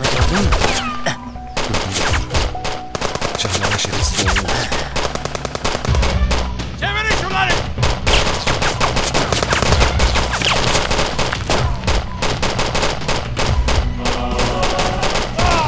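Rapid automatic rifle fire in a gunfight, many shots overlapping in quick bursts, with dramatic music underneath.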